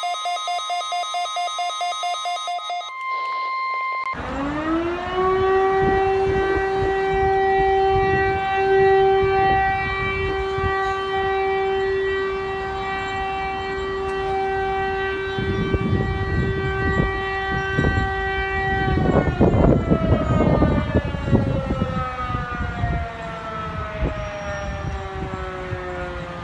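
Outdoor warning siren winding up about four seconds in, holding one steady tone for about fifteen seconds, then slowly winding down in pitch, with rough low rumble underneath. Before it, a rapid pulsing electronic alarm tone is followed by a brief steady beep.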